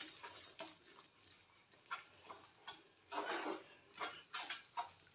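Faint, irregular kitchen clatter: short scrapes and knocks of a utensil, with a longer scrape about three seconds in.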